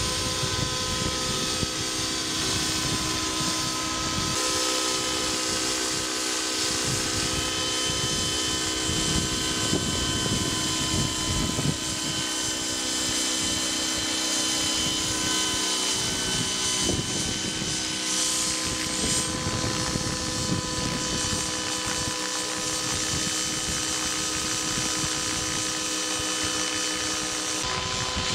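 Align T-Rex 700 radio-controlled helicopter running under load as it lifts a towed model jet glider: a steady whine of motor and rotor holding several even tones, with irregular wind rumble on the microphone.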